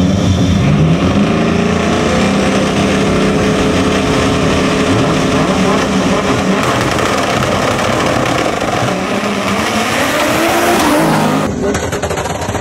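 Street-race cars, a Mustang among them, revving their engines while staged at the line, the pitch rising and falling again and again. About eleven and a half seconds in, the sound cuts abruptly to a thinner-sounding recording of the cars.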